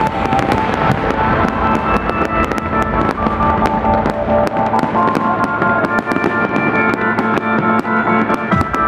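Fireworks bursting and crackling, many sharp bangs several a second, over loud music with sustained notes.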